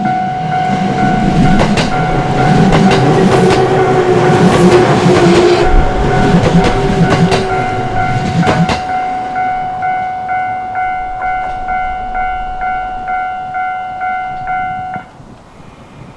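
An electric train rolls through a Japanese railway level crossing, its wheels clacking repeatedly over the rail joints, while the crossing's warning bell rings steadily. The train clears about nine seconds in. The bell rings on alone and stops about fifteen seconds in, as the crossing finishes its cycle.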